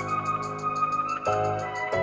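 Background music: electronic keyboard chords over a steady beat, changing chord about a second in and again near the end.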